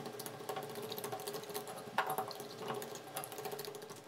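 Metal fork beating eggs into batter flour in a glass bowl: a quick, irregular run of clinks and taps against the glass, with a sharper clink about two seconds in.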